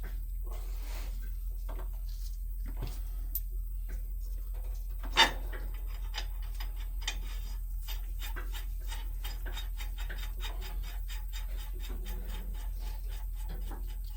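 Rapid metallic ticking and scraping as nuts are worked onto a semi trailer's Loctite-coated U-bolts, with one sharp click about five seconds in. A steady low hum runs underneath.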